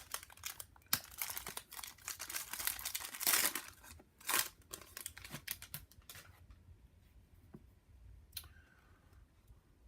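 Plastic wrapper of a sports-card pack being torn open and crinkled, a dense crackling that dies away after about six seconds, followed by a few faint clicks.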